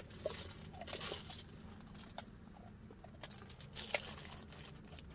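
Light rustling and crinkling in two short spells about three seconds apart, with scattered small clicks and taps between them.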